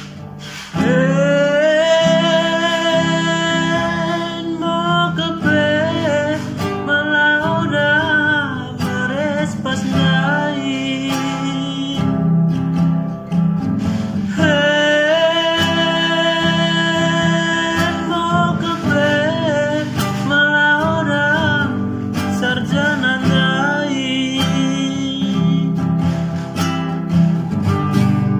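A man singing a Pakpak song to his own strummed acoustic guitar, drawing out long notes with a wavering pitch, the longest about a second in and again about halfway through.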